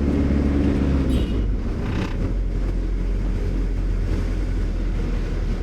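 Engine and road noise of a moving car, heard from inside it: a steady low engine hum whose note shifts about a second in, with a brief passing swish of higher noise around two seconds in.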